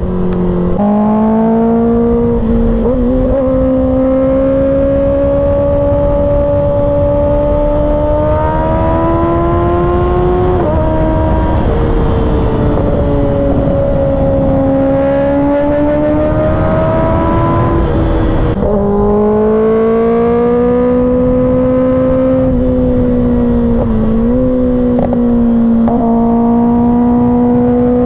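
2024 Kawasaki ZX-6R's 636 cc inline-four engine running hard at highway speed, its pitch slowly rising and easing with the throttle. About 18 seconds in the pitch drops suddenly at a gear change, then climbs again.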